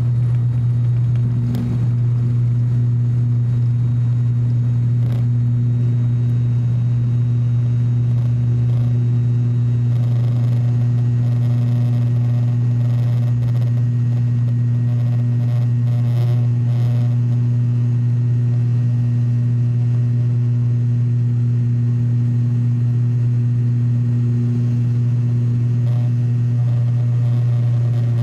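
Cabin noise of an ATR 42-600 turboprop at takeoff power, heard beside the propeller: the six-bladed propeller's steady low drone with a second tone above it, through the end of the takeoff run and the initial climb.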